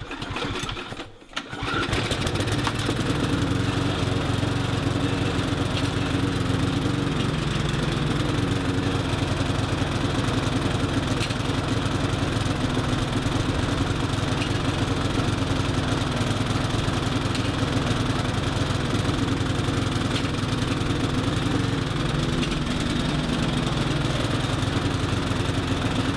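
Mountfield SP470 petrol lawn mower engine pull-started, catching about a second and a half in, then running steadily at a constant speed.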